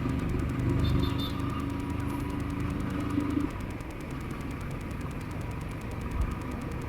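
Royal Enfield motorcycle engine running under way, a steady low rumble with a held engine tone that falls away about halfway through as the loudness eases.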